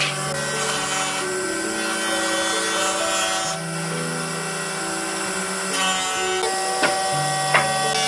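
Background music of held, sustained chords that change every second or so, with two light sharp clicks near the end.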